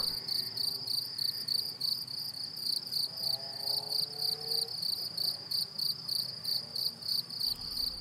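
Crickets chirping in a rapid, even, high-pitched pulse, with a faint sliding tone rising in the middle.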